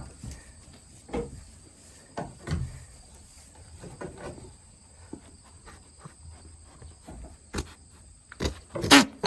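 Goats moving about in a pen: scattered knocks, shuffles and thumps, louder near the end, over a faint steady high-pitched hum.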